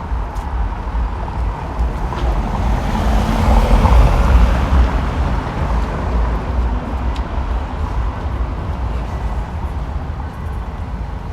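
Small-town street traffic: a car passes by, its noise swelling to a peak about four seconds in and then slowly fading, over a steady low rumble of the street.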